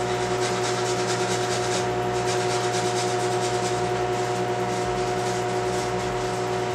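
A garlic clove rubbed on the fine face of a metal box grater: quick repeated rasping strokes with a brief pause about two seconds in. Under it, a steady hum from a running kitchen appliance.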